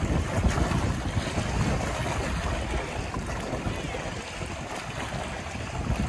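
Wind buffeting the microphone with a deep rumble, over small waves splashing and lapping against shoreline rocks.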